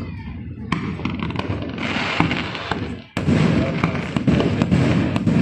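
Fireworks display: aerial shells bursting in deep, rolling booms laced with many sharp crackles, with a fresh loud burst about three seconds in.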